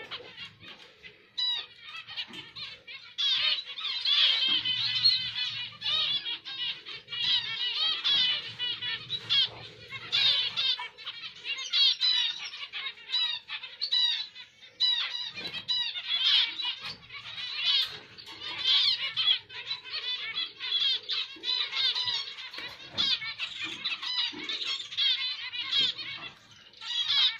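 Zebra finches chirping in a dense, near-continuous run of short, high calls.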